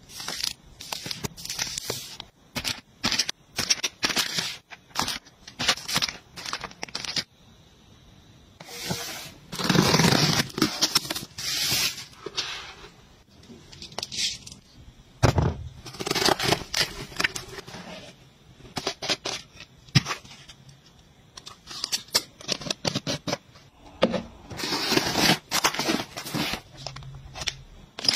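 Plastic packaging crinkling and rustling as wrapped packs are handled and pushed into place. It comes in irregular bursts, with brief quieter gaps between.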